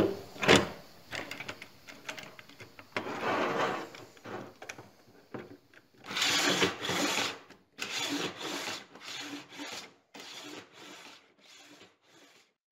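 Rip fence and fittings of a table saw slid and scraped by hand across the metal table top, in a series of rubbing strokes that fade toward the end, with a sharp click near the start.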